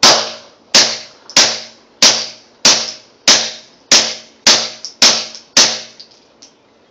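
Glock 19 9mm pistol fitted with a screw-on suppressor, fired ten times in a steady string, about one and a half shots a second; each shot is a sharp report that dies away quickly.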